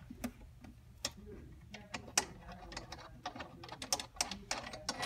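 Wrench working the bolts under a barber chair's seat: a run of irregular clicks that grows busier about two seconds in.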